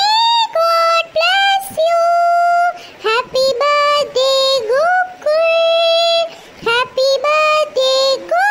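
A high, pitch-shifted cartoon voice singing a tune in long held notes, with upward slides into some notes and short breaks between phrases.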